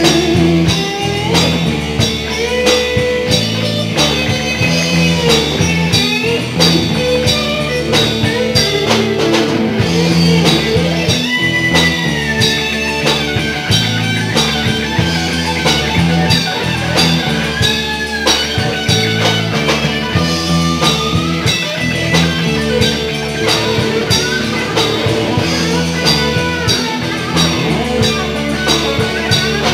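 Live rock band jamming: an electric guitar plays a lead solo with bent notes over bass guitar and a steady drum-kit beat.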